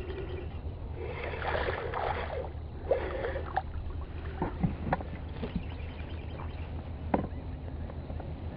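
A hooked fish splashing at the surface close to the boat while a spinning reel is cranked, with a few short sharp clicks and knocks over a steady low hum.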